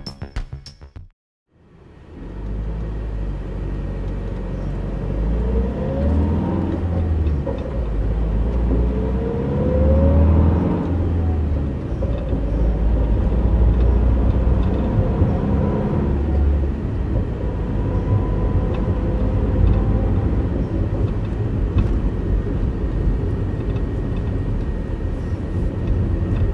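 Van engine and road rumble heard from inside the rear compartment: a steady low rumble, with a couple of faint rising whines a few seconds in.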